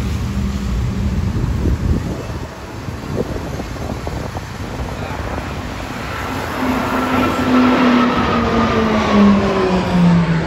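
Formation of Embraer A-29 Super Tucano turboprop aircraft flying over, their propeller and engine drone loud and falling steadily in pitch as they pass, from about six seconds in.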